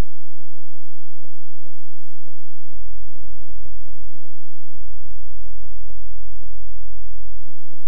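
Wind buffeting a camcorder microphone: a heavy low rumble with repeated thumps, growing much stronger from about three seconds in and easing off near the end.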